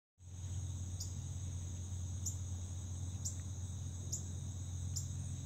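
Steady high-pitched insect chorus, with a sharper chirp about once a second, over a low steady hum.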